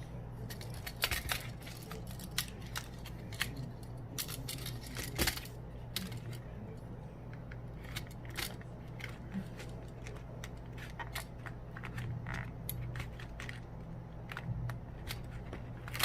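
Scattered small clicks, snaps and scrapes of hand tools prying and cutting at the internals of a smashed Sonim XP8 rugged phone, over a steady low hum.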